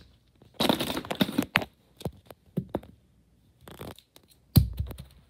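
Handling noise as toy figures and accessories are moved around: rustling and crinkling with a few sharp clicks, then a heavy thump about four and a half seconds in.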